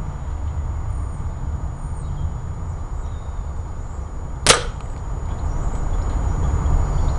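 A single sharp shot crack about four and a half seconds in, as a projectile strikes a yellow-disc zeroing-stick target marker and punches a hole in it, over a steady low rumble.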